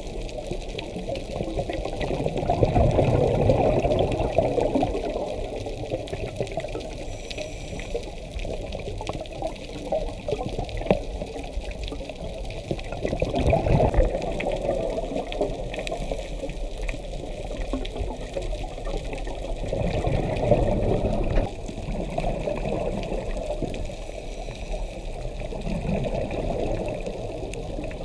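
Heard underwater: a scuba diver's regulator bubbling out exhaled breath in swells every several seconds, over a steady muffled water rush.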